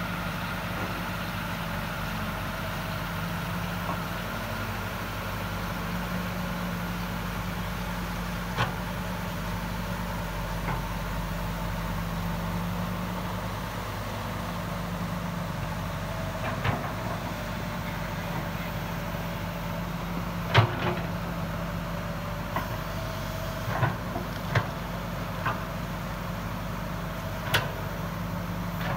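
An engine runs steadily with a low hum. Several short, sharp knocks or clanks break in, mostly in the second half, the loudest about two-thirds of the way through.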